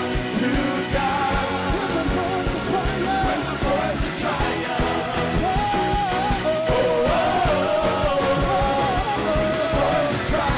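Live band playing an upbeat gospel-rock song with a steady beat, electric guitar and saxophone, with singing over it.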